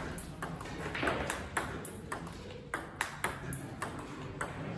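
Table tennis multiball forehand drill: a ball fed from a bowl, bouncing on the table and struck by rubber paddles in a quick run of sharp clicks, about two to three a second.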